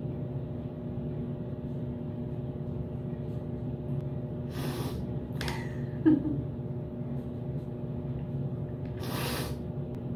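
A woman crying quietly: three sharp sniffs through the nose and a short sob about six seconds in, over a steady low hum.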